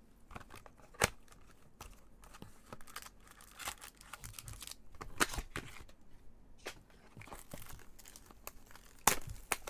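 Packaging of a Panini Chronicles trading-card hobby box being torn and crinkled open by hands in nitrile gloves, with a few sharp snaps, the loudest pair near the end.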